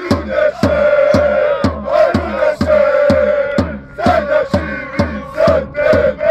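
Group of men chanting a football supporters' song in unison, loud, over a drum struck steadily about twice a second.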